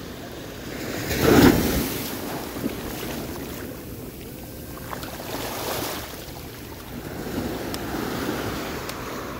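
Ocean surf washing up the beach, in swells that rise and fall, the loudest about a second in, with wind on the microphone.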